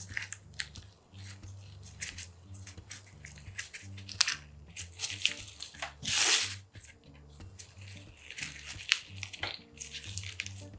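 Crinkling and rustling of nitrile gloves, bamboo rolling mat and seaweed as gimbap is rolled and pressed in the mat, in many short crackles, with one longer, louder rustle about six seconds in. Soft background music runs underneath.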